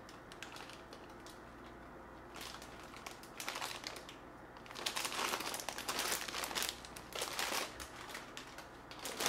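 Plastic bag of dried rice stick noodles crinkling as it is handled, in short bursts after a quiet start, busiest from about five to eight seconds in, with one last crinkle at the end.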